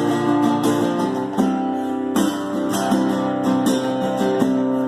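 Music: an acoustic guitar playing chords, with a new strum or pluck about every half second to second.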